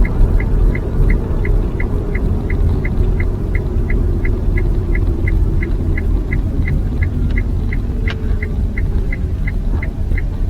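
Nissan Leaf's turn-signal indicator ticking evenly, about three short electronic ticks a second, over the low rumble of the car rolling slowly.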